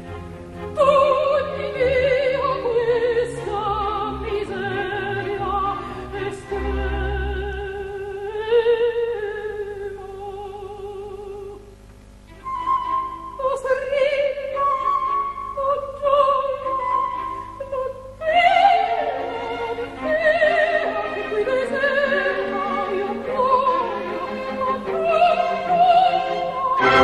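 Opera aria on a recording: a soprano sings long held notes with wide vibrato over an orchestra, with a brief pause between phrases about halfway through.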